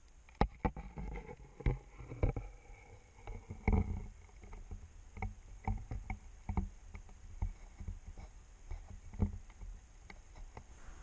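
Irregular muffled knocks and thuds with a low rumble, heard underwater beneath the ice, about one or two a second with no steady rhythm.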